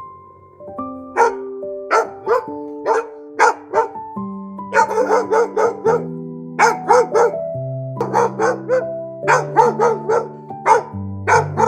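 An animal barking in short, sharp calls, singly and in quick runs of four or five, over background music with long held notes.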